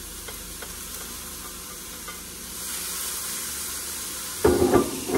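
Food frying in a pan with a steady sizzle that grows louder about two and a half seconds in. Near the end, a few loud knocks, like a utensil or pan being handled.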